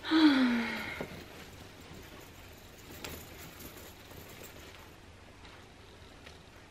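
A woman's voice for about a second, falling in pitch, then a quiet room with faint rustling as a jacket is handled and a few soft clicks about three seconds in.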